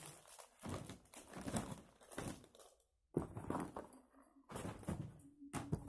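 Rustling and knocking of pencil cases and other small items being picked up and moved about by hand, in irregular bursts with brief pauses.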